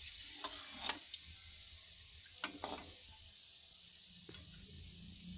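Mawa-and-maida dough balls deep-frying in oil on a low flame: a steady faint sizzle, with a few short clicks and scrapes of a slotted spoon in the pan, mostly in the first three seconds.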